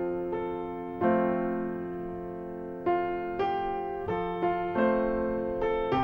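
Solo piano music: single notes and chords struck one after another and left to ring and fade, coming more often in the second half.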